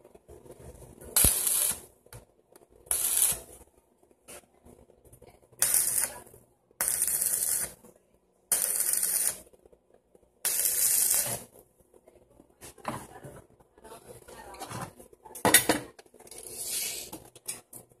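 Stick welder striking short tack welds on a steel frame: about six bursts of hiss, each under a second long, in the first eleven seconds, then fainter, broken bursts. There is a sharp metallic knock about fifteen and a half seconds in.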